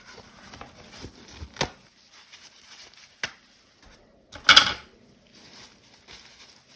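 Support material being picked and scraped out of 3D-printed keycap stem cavities: small plastic scratches and ticks, sharp snaps about a second and a half and three seconds in, and a louder crackling snap about four and a half seconds in as a piece breaks away.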